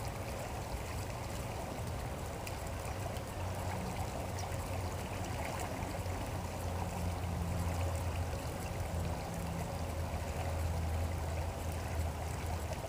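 Steady rushing of flowing river water, with a low rumble that swells and fades.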